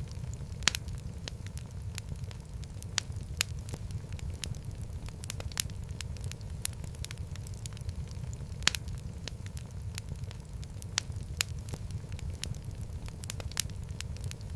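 Wood fire in a fireplace crackling, with frequent irregular sharp pops and snaps over a steady low rumble of the flames.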